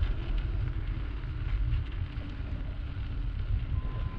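Wind rumbling on a bicycle-mounted action camera's microphone while riding, with steady tyre noise from rolling over snow-dusted brick pavers.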